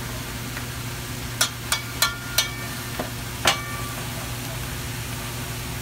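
Ham slices and eggs sizzling on a flat-top griddle over a steady low hum. About six sharp metallic clinks, some ringing briefly, come between about one and a half and three and a half seconds in.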